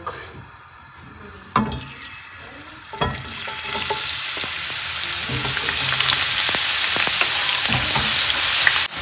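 Diced onion going into a pan of hot sunflower oil: a couple of knocks, then sizzling that starts about three seconds in and grows louder as more onion goes in.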